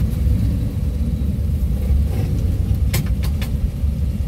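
Car engine running at idle, a steady low rumble heard from inside the car, with a few short clicks about three seconds in.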